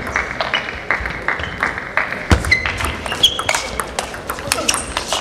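Table tennis ball clicking off bats and the table in a rally, many sharp taps at uneven intervals, the loudest a little past two and three seconds in. A few short high squeaks come in between the hits.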